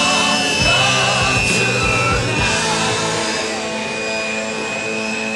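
Rock music soundtrack; its drum hits drop away about three seconds in, leaving held chords.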